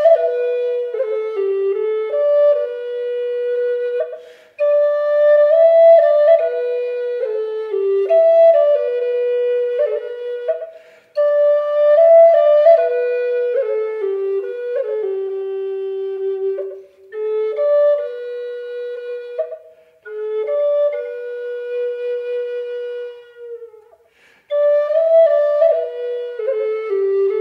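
Background music: a solo flute playing a slow melody in phrases a few seconds long, with brief pauses between them.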